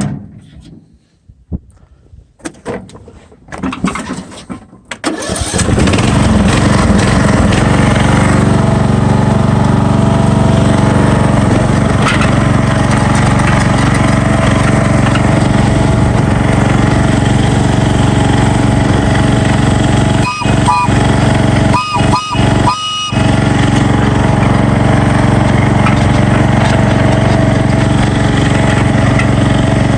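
Briggs & Stratton engine of a Craftsman LT1000 riding lawn mower starting up about five seconds in, then running steadily.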